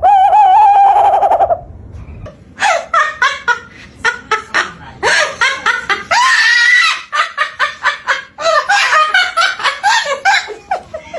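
Birds calling loudly: a long, wavering call at the start, then a fast run of short, harsh, laugh-like calls, several a second, with one longer call in the middle.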